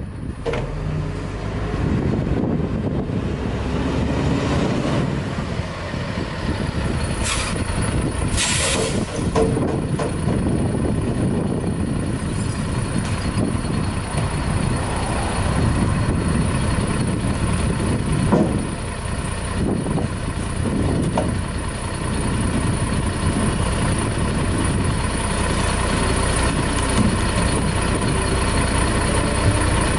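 Diesel engine of a WhiteGMC Heil front-loading garbage truck running as the truck rolls up and stops, then idling. A brief air hiss about eight seconds in, with a few knocks later as cans are emptied into the front container.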